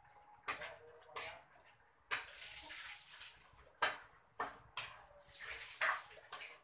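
Chicken adobo sizzling in a wok over a gas flame, with the stirring utensil scraping and knocking against the pan about seven times. Between strokes there are stretches of steady hissing.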